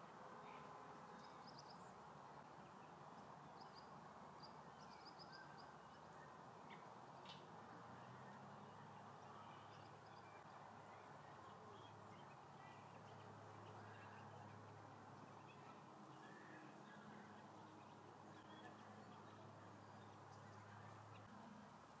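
Near silence: faint outdoor background hum, with a few faint, short, high bird chirps in the first few seconds and a faint low steady hum through the middle.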